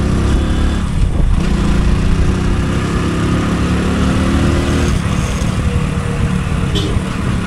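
Motorcycle engine running steadily while the bike is ridden along a road, with a heavy low rumble.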